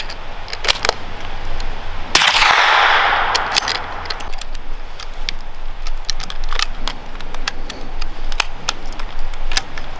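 A single shot from a suppressed bolt-action rifle about two seconds in: a sharp report with a long echo dying away over a second or so. It comes after a couple of clicks of the bolt being worked, and scattered metallic clicks of gun handling follow.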